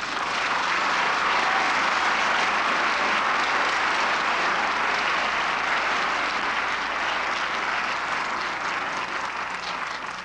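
Large audience applauding: dense, even clapping that starts abruptly, holds steady and eases slightly near the end.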